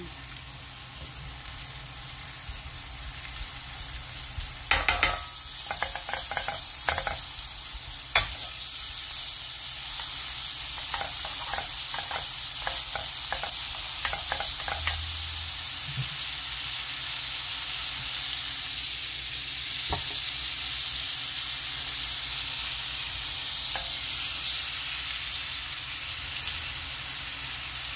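Flour-dredged chicken breasts frying in butter in a nonstick pan: a steady sizzle that gets louder about five seconds in, with a run of light taps and clicks in the pan over the next ten seconds.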